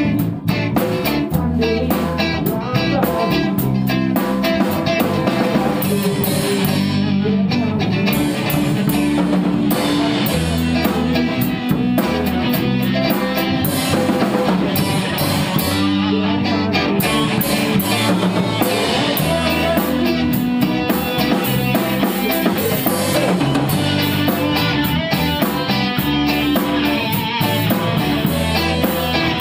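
A band playing a song together, with strummed and picked guitars over a drum kit keeping a steady beat.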